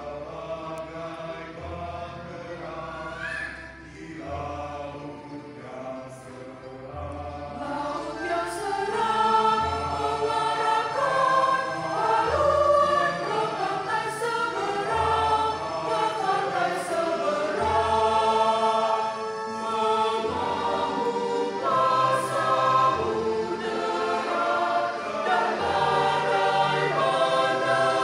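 Mixed choir of men's and women's voices singing a hymn in parts, growing louder and fuller about eight seconds in.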